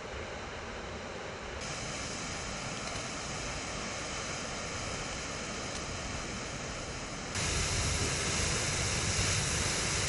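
Steady rushing hiss of water jetting under pressure from a burst water pipeline and spraying high into the air. It grows louder about seven seconds in.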